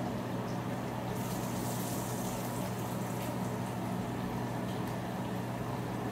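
Spice-rubbed rockfish pieces frying in oil and butter in a pan, a steady sizzle that grows brighter about a second in. Under it runs a steady low hum.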